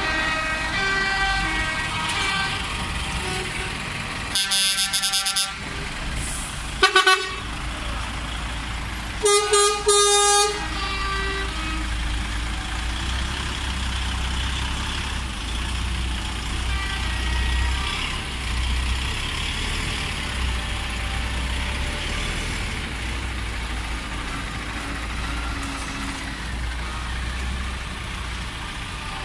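Heavy trucks driving slowly past one after another, their diesel engines running with a steady low rumble. Air horns blast over it: a long blast about four seconds in, a short one about seven seconds in, and two more around ten seconds.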